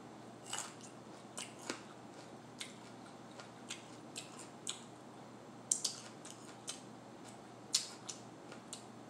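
Close-up crunching and chewing of a raw mini sweet pepper stuffed with cream cheese and everything bagel seasoning: irregular crisp crunches, about one or two a second.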